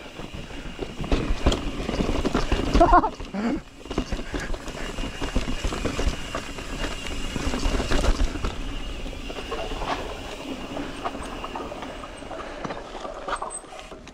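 Mountain bike rattling down a rocky trail: tyres knocking and rolling over rock and dirt, with the chain and suspension clattering in irregular bursts and wind rumbling on the helmet-mounted microphone.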